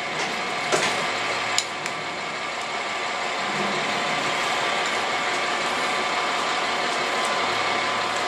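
Steady whirr of running background machinery, with a few light clicks in the first two seconds from a flat screwdriver turning in the end of a spark plug boot.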